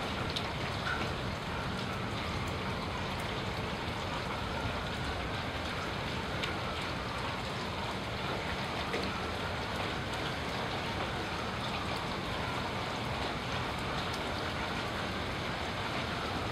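Steady rain falling, with an emergency vehicle siren wailing faintly through it, its pitch slowly rising and falling.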